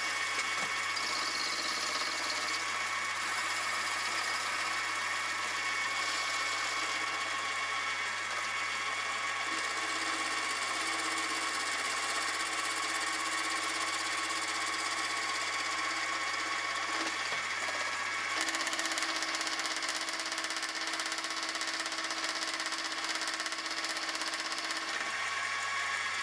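Milling machine running, its end mill cutting along the shank of a model locomotive connecting rod as the table feeds it past: a steady machine whine with a hum under it, shifting slightly in tone a couple of times.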